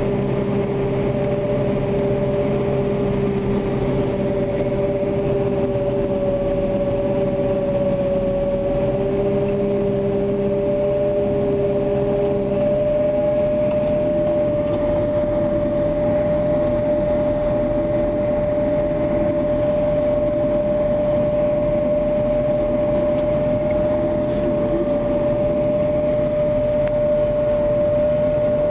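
Heavy harvest machinery running steadily with a high whine. A second, lower engine tone with a deep hum beneath it drops away about halfway through.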